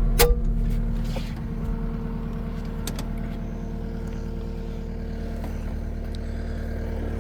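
Cat 259D3 compact track loader's diesel engine idling steadily, with one sharp click about a quarter-second in.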